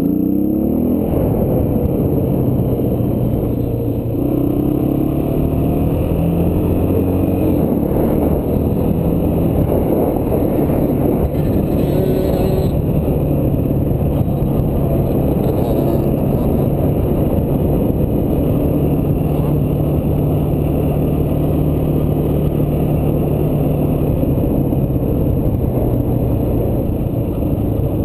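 Dirt bike engine heard from the rider's own machine while riding, its pitch climbing as it accelerates in the first second or so, then running on with rises and dips and holding fairly steady toward the end.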